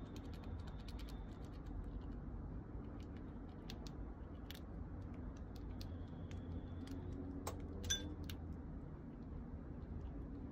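Eurasian red squirrel gnawing and cracking pine nuts: irregular small crunching clicks, with one louder crack about eight seconds in.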